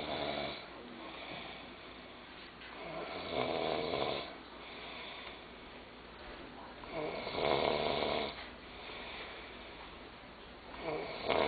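A sleeping boy snoring with his mouth open: a long rasping snore about every four seconds, with quieter breathing in between.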